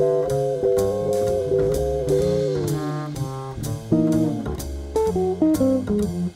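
Instrumental background music with a steady drum beat and sustained chords, with runs of notes stepping downward about halfway through and again near the end.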